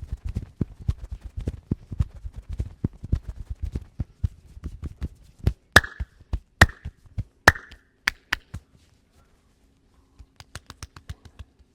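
Fast massage percussion: a rapid run of hand chops and slaps on a person's head and back, then three or four louder, sharper slaps about a second apart. After a short pause, a quick run of faint taps comes near the end.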